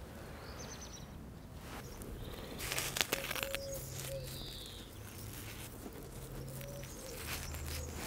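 Outdoor garden ambience with a few faint bird chirps, and a rustling of clothing and twigs with one sharp click about three seconds in, as hands work at the fork of a tree.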